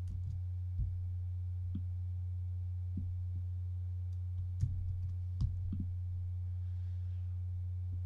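Steady low-pitched electrical hum, like mains hum picked up on the recording, with a few soft clicks scattered through it, the sharpest about four and a half and five and a half seconds in.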